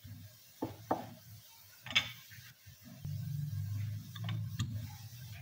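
Wooden rolling pin rolling dough on a round board: a few sharp knocks of the pin against the board, then a steady low rumbling from about three seconds in as the pin is rolled back and forth.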